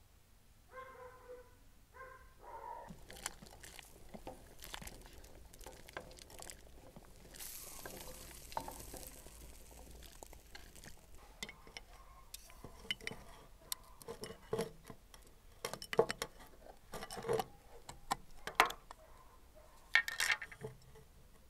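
Cooking sounds: chopped vegetables dropped into a pot of broth, then a spoon clinking and scraping inside a glass jar of tomato sauce, with the sharpest clinks in the last few seconds.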